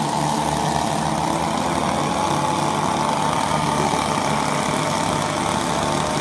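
Two-stroke chainsaw engine idling steadily.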